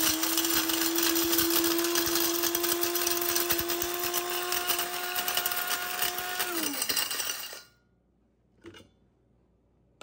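Electric blade spice grinder grinding dried rowan berries and bark: a steady motor whine over a hiss of grinding, breaking the berries and bark up coarsely. About six and a half seconds in the button is released and the motor spins down, followed by one faint click.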